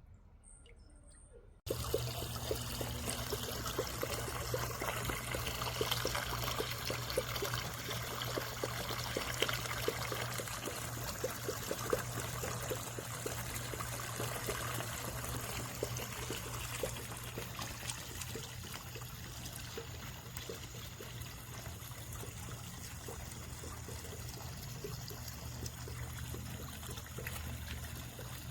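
Small solar fountain pump burbling water into its basin: a steady trickling splash over a low steady hum, starting abruptly about two seconds in.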